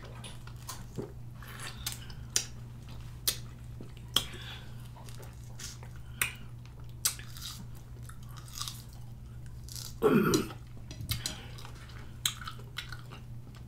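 Close-up wet eating sounds of a person biting and sucking on raw lime wedges: sharp mouth clicks and smacks come about once a second. A short hummed voice sound comes about ten seconds in.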